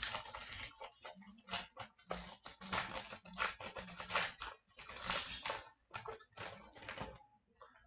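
Foil wrapper of an O-Pee-Chee Platinum hockey card pack crinkling and tearing as it is opened by hand: a run of short, irregular rustles that dies away about seven seconds in.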